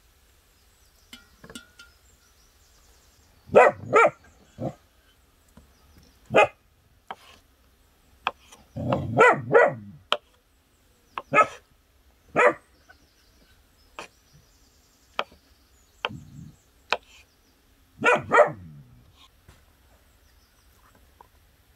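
A dog barking about a dozen times in short single and double barks, in irregular bursts with pauses between. Fainter taps of a knife on a wooden cutting board fall between the barks.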